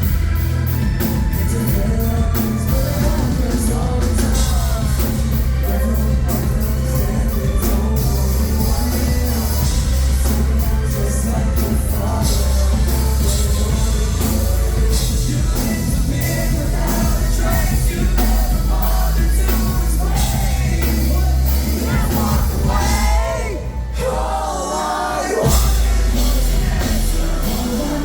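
A live band plays a rock song with a singer over drums and bass. Near the end the low end drops out for about two seconds before the full band comes back in.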